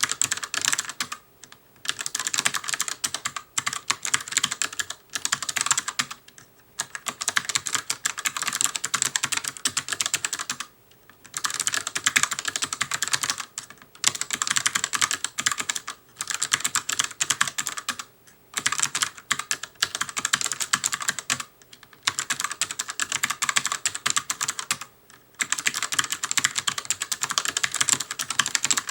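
Fast, continuous typing on an ELECOM TK-ARMA50BK low-profile mechanical keyboard with ELECOM's own clicky switches. The keystrokes are crisp, high clicks coming in rapid runs, with a short pause every few seconds.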